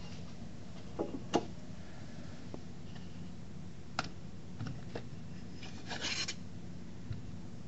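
Small brass model steam engine being handled by hand: a few light clicks and taps of its metal parts, then a brief scrape about six seconds in as the boiler is lifted off the burner. A steady low hum runs underneath.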